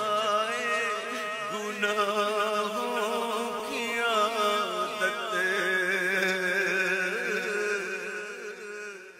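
A man singing an Urdu devotional song of repentance, unaccompanied, in slow, wavering melismatic phrases with a long held note through roughly the second half, over a steady low hum.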